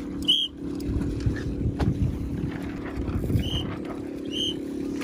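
Water and wind noise from a small sailboat under way in light air, with a steady low hum and four short high-pitched chirps.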